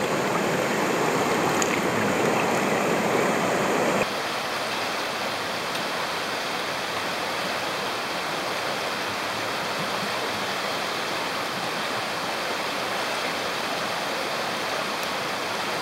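Mountain stream water rushing steadily over rocks; about four seconds in it turns abruptly quieter and thinner, then stays even.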